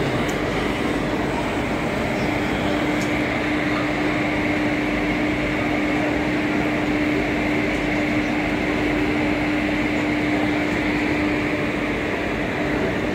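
Indian Railways electric locomotive standing with its machinery running: a steady rushing noise with a constant hum.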